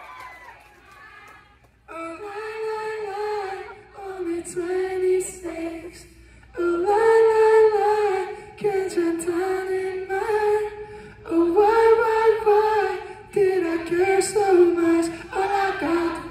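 A male pop singer's voice singing a cappella through a microphone, in high, sustained melodic phrases with no instruments. The phrases start about two seconds in.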